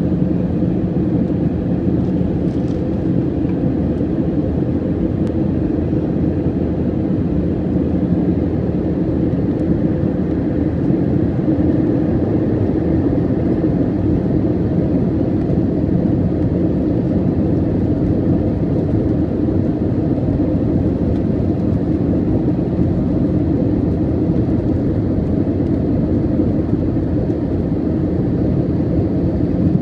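Steady cabin noise of a jet airliner in flight, heard from a window seat beside the engine: an even jet drone and rush of air with a low hum, unchanging throughout, as the aircraft descends on approach to land.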